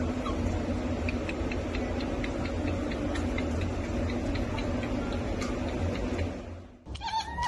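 Steady background hiss and low hum with faint, evenly spaced ticks, about two or three a second. It cuts off suddenly near the end, and a cat gives a short meow.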